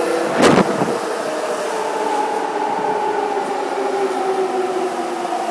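Nagoya Sakura-dori Line subway train entering the station and running past close by, with a brief loud rush about half a second in as the front goes by. Then a steady run of car noise with a whine that falls slowly in pitch as the train slows to stop.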